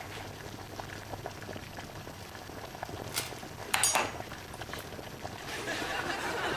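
Pot of spaghetti boiling on the hob, a steady bubbling. Two sharp metallic clinks about three and four seconds in, as a utensil knocks against the pot.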